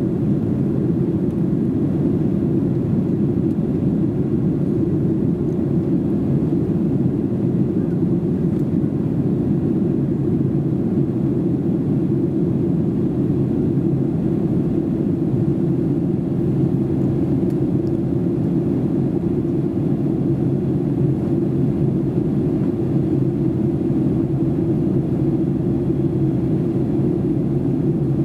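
Steady cabin noise of a Boeing 737-800 in flight, heard from a rear seat: a constant low rumble from its CFM56 engines and the airflow over the fuselage.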